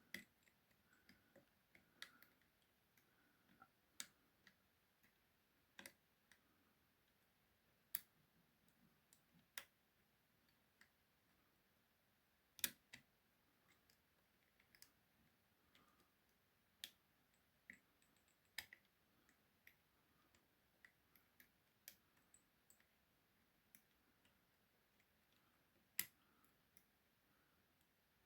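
Faint, irregular metallic clicks and taps of steel music-wire picks and a tension tool lifting the levers inside a five-lever mortice lock, with a few sharper clicks, the loudest about halfway through and another near the end.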